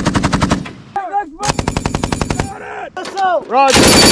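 M240 7.62 mm belt-fed machine gun firing short bursts of automatic fire, about ten shots a second, with brief shouts between bursts. A loud, dense rush of noise comes near the end.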